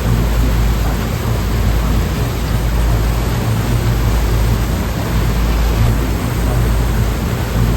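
Steady rushing sea noise with a constant deep rumble beneath it and no single wave breaks standing out.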